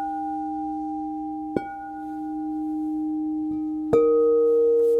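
Crystal singing bowls struck and left ringing in long, steady tones. A low bowl is struck again about a second and a half in. Near four seconds in a higher-pitched bowl is struck, louder, and rings on together with the first.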